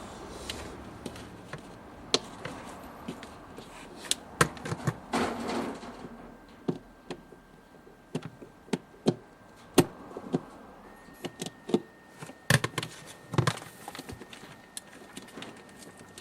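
Irregular sharp clicks, taps and knocks of hands working on refrigerator parts, with a faint steady high tone underneath that steps up slightly in pitch about eleven seconds in.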